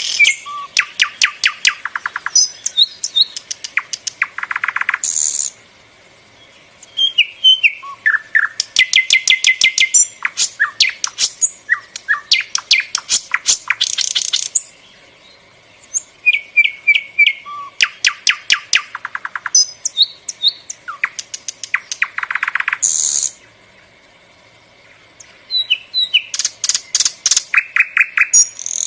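Bulbul singing in long phrases of rapid, stuttering trills mixed with short whistled notes. Each phrase lasts several seconds and is followed by a pause of a second or two.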